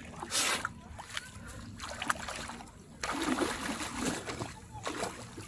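Splashing and sloshing of a person wading through shallow, calm seawater on foot: a few separate splashes first, then steadier sloshing in the second half as the legs push through the water.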